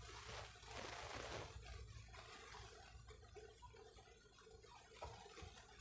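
Near silence: faint room tone with a soft hiss that fades after the first second or so.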